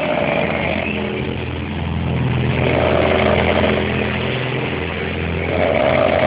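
Loud snoring, a low buzzing rasp that swells with each breath about every three seconds.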